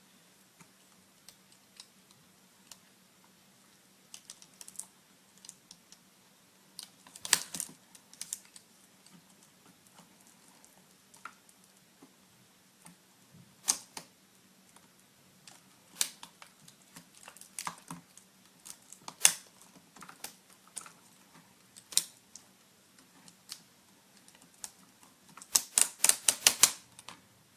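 Scattered light clicks and taps of plastic laptop parts being handled as an LCD screen is lifted out of a netbook's display frame, some single, some in quick runs, with the busiest run of clicks near the end.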